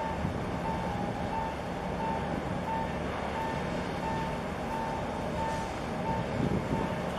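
A vehicle's reversing alarm beeping at an even pace, a little under two beeps a second, each beep one steady mid-pitched tone, over a steady low rumble.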